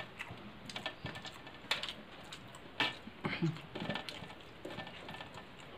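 Close-up eating sounds of rice and curry eaten by hand: irregular wet chewing and lip smacks with scattered sharp clicks, some from fingers working the food on a steel thali.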